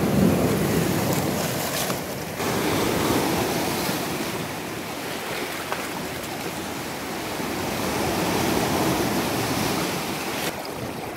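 Sea waves breaking and washing over shoreline rocks, the surf swelling and ebbing.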